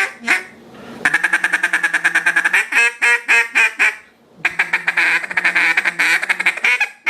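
A GK Calls 'Call Girl' mallard duck call blown by hand. A single quack comes first, then a fast run of short chattering notes, a few separate quacks, and a second fast run.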